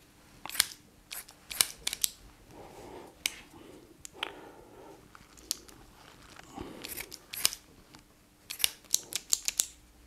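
Copy of Leatherman Raptor trauma shears snipping through a cotton T-shirt: sharp clicking snips at irregular intervals with soft fabric rustle between them, and a quick run of snips near the end.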